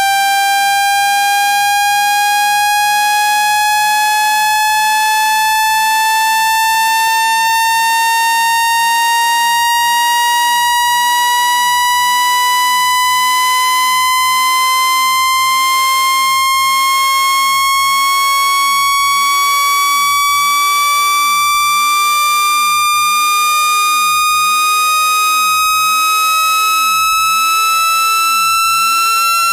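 Water-eject tone: a single steady electronic tone gliding slowly and evenly upward in pitch. It is played through a phone speaker to shake trapped water droplets out of it.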